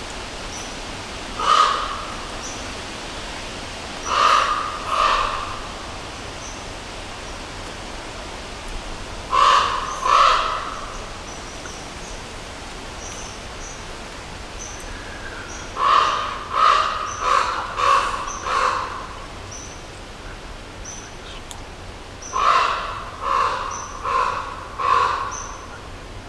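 A crow cawing in bouts: a single caw, then two pairs, then runs of five or six harsh caws in quick succession. Faint short high chirps recur throughout over a steady outdoor hiss.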